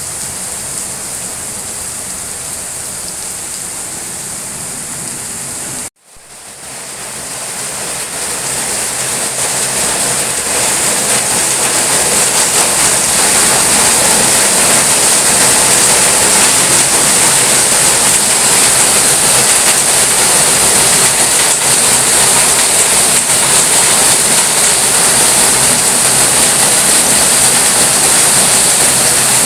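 Steady rain falling. About six seconds in the sound cuts out abruptly, then fades back in over a few seconds and carries on louder and steady.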